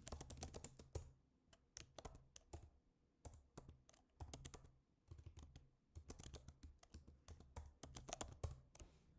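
Typing on a computer keyboard: quick runs of key clicks in several short bursts with brief pauses between them, fairly faint.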